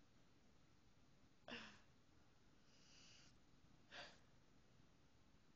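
A sleeping person snoring softly: a short rasping breath about a second and a half in, a faint hissing breath around three seconds, and another short rasping breath at about four seconds.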